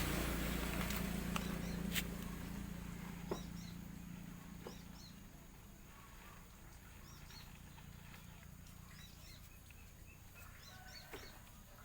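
Small birds chirping faintly and repeatedly, with a low hum that fades out over the first few seconds and a few light clicks.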